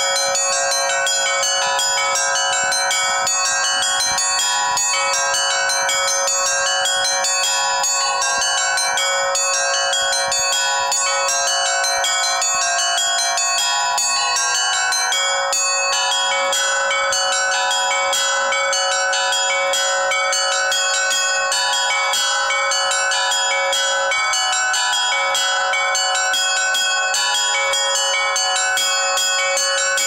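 Russian-style bell ringing (zvon) on a frame of about eight fixed bells of graded sizes, their clappers pulled by ropes. Rapid, continuous strikes of small and large bells overlap, and their ringing tones layer into a sustained peal.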